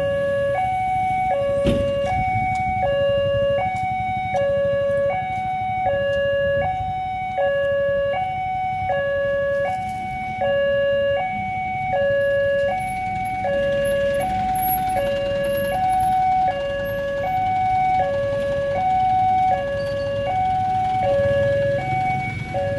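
Railway level-crossing warning alarm sounding from the crossing's horn loudspeaker: an electronic tone that alternates steadily between a lower and a higher pitch, each held about half a second, while the barriers are down for an approaching train.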